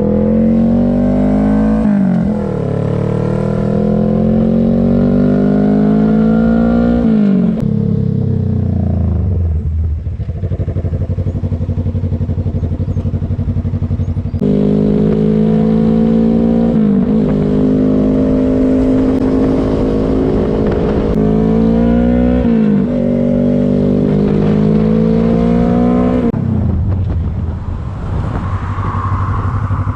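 2018 Suzuki GSX250R's 248 cc parallel-twin engine pulling through the gears under way: the note climbs in pitch and drops at each upshift. It settles to a steady low note for several seconds, then pulls up through the gears again and eases off near the end.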